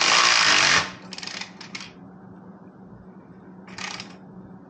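Cordless electric ratchet running for under a second, then a few short blips as it snugs down a muffler clamp bolt, with one more brief burst near the end.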